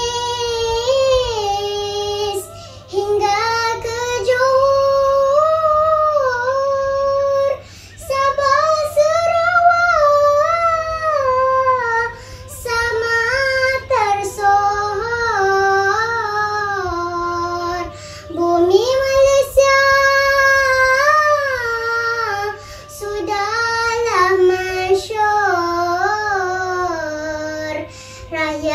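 A young girl's solo voice chanting a Malay syair, holding long notes whose pitch bends and wavers in melismatic turns. The chant comes in phrases, each broken off by a short breath.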